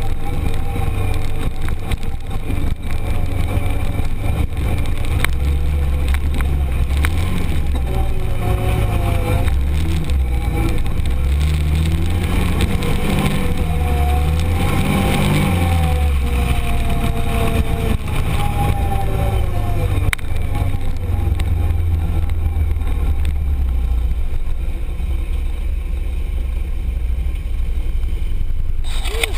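Arctic Cat Prowler 1000 UTV's V-twin engine running under way, heard from inside the open cab. Through the middle the revs rise and fall repeatedly as the throttle is worked over the trail, and the rest is a steadier drone.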